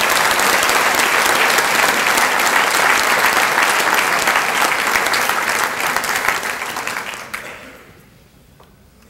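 Audience applauding, a dense clatter of many hands clapping that dies away about seven to eight seconds in.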